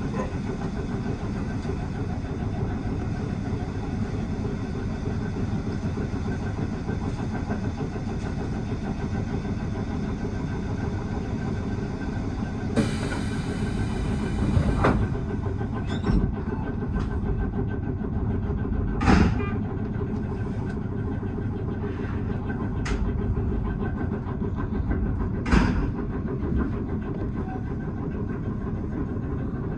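Tobu 6050 series electric train running along the line, heard from inside the front car: a steady rumble of wheels and traction motors. A few sharp clacks of the wheels over rail joints come in the second half, and a brief hiss comes about two-fifths of the way in.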